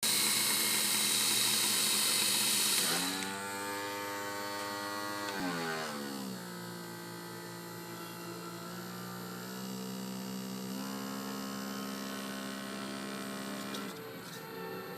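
Electric sewing machine motor running. It starts with a loud hiss for about three seconds, then hums at a pitch that follows its speed, slowing about six seconds in and speeding up again near eleven seconds.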